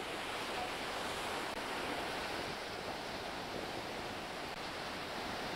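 Ocean surf washing onto a sandy beach: a steady, even rushing noise.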